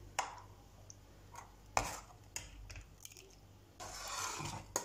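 A metal ladle stirring thick rice pudding in a stainless steel pot, with a few faint clinks of ladle against pot, the sharpest about a quarter second, a second and three quarters, and two and a half seconds in. A soft hiss rises near the end.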